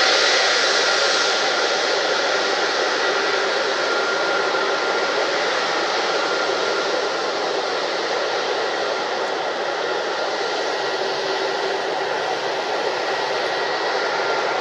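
Airbus Beluga XL's Rolls-Royce Trent 700 turbofan engines running at low taxi power: a steady jet rush with a thin, steady whine on a few high notes.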